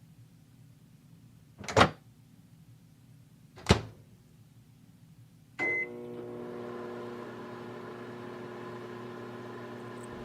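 Two sharp clacks, then a short high keypad beep about halfway through, and a microwave oven starting up and running with a steady hum to heat a water bottle.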